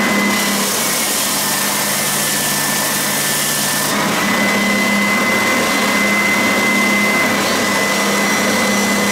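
Triton TSPST450 spindle and belt sander running with a steady motor whine and hum, a piece of wood sanded against its 80-grit belt. The sanding hiss drops away about four seconds in, and the belt runs on free.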